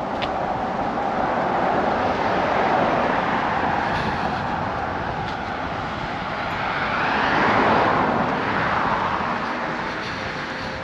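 Cars passing on the road alongside, their tyre and engine noise swelling and fading twice, the louder pass about three-quarters of the way through.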